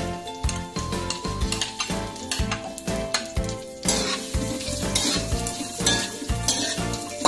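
Minced garlic sizzling in hot rendered pork fat in a stainless steel wok, while a slotted metal turner scrapes and taps against the pan as it stirs. The sizzle grows louder about four seconds in.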